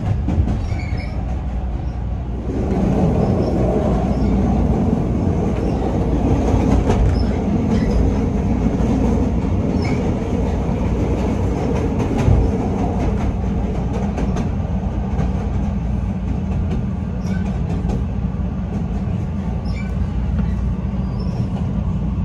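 CTA Red Line rapid-transit train running between stations, heard from inside the car: a steady rumble of wheels on rail with clickety-clack from the track. It grows louder about two and a half seconds in, with a single low thump about twelve seconds in.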